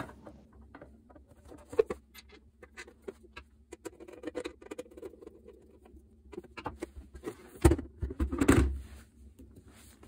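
A T20 Torx screwdriver driving the screws of a plastic base back into place: small scratchy clicks and ticks of the bit and screws. There is a sharper click about two seconds in, and louder knocks and a brief scrape of the base being handled near the end.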